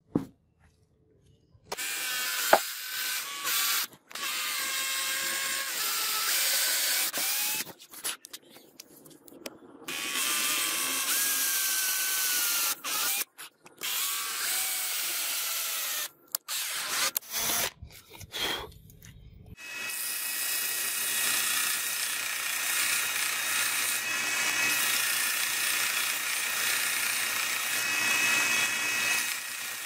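Cordless drill boring a row of holes into a hardwood handle block held in a vise, in several runs of a few seconds each with the motor's pitch sliding up and down between stops. About two-thirds of the way in, a belt sander starts and runs steadily.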